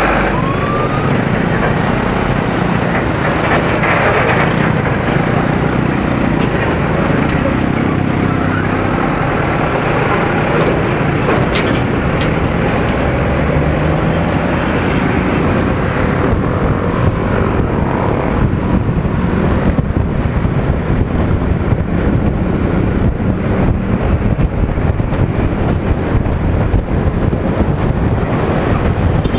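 Motorcycle engine running amid surrounding road traffic of trucks and cars, the bike moving slowly in congestion, its engine pitch rising about halfway through. In the later half, as it gets up to speed, wind buffeting the helmet-mounted microphone grows.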